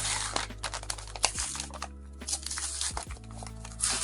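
Paper crinkling and tearing in irregular rustles as the glued scrap paper on the base of a 3D-printed PETG statue is handled and pulled at, with soft background music under it.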